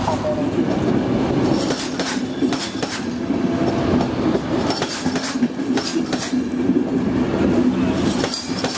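Czech Railways passenger coaches rolling past close by, a steady rail rumble with irregular sharp clacks from the wheels over the rail joints and a faint high wheel squeal.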